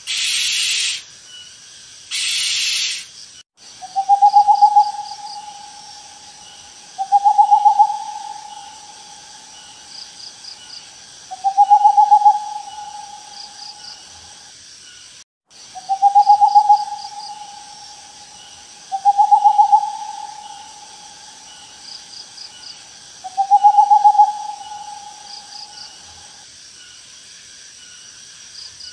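An owl hooting six times, a few seconds apart, each a single quavering hoot that starts strong and trails off. Two harsh hissing bursts come before the hoots in the first few seconds.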